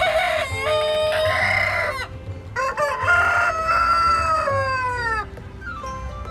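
Rooster crowing twice: a first crow of about two seconds, then a longer second crow that falls in pitch at its end.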